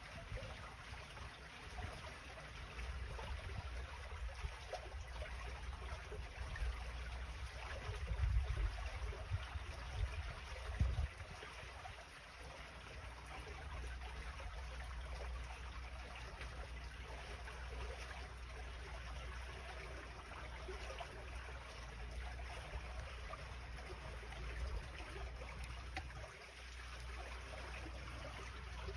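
Water trickling steadily through a roadside drainage gutter under steel checker-plate covers. Low gusts of wind on the microphone come about eight to eleven seconds in.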